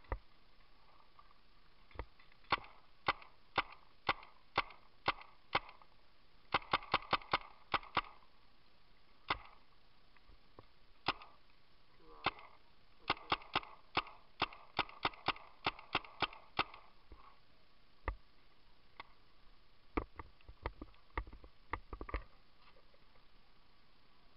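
Paintball markers firing: sharp pops, some single and some in quick strings, with a rapid burst about a third of the way in and a steady run of about two shots a second a little past the middle.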